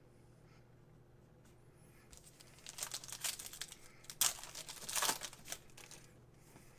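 Card-pack wrapper crinkling and tearing as a trading-card pack is opened by hand. It starts after a couple of seconds of quiet, goes on for about three seconds, and has two louder crinkles near the middle.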